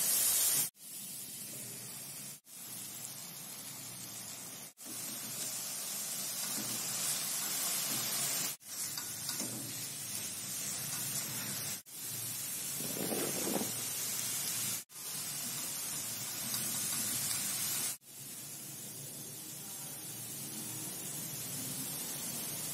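Chopped vegetables and egg sizzling as they sauté in ghee in a wok. The steady high hiss cuts off abruptly and starts again about six times.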